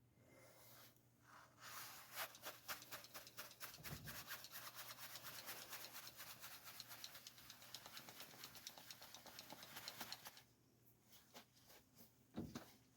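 Faint, rapid back-and-forth brushing, a brush scrubbing the HVAC blower during cleaning, which starts a second or two in, runs for about eight seconds and then stops.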